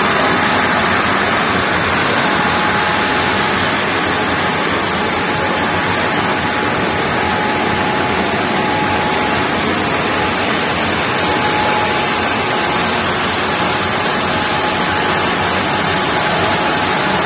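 PUR hot-melt glue laminating machine running, a steady rushing noise with a faint high steady whine in it.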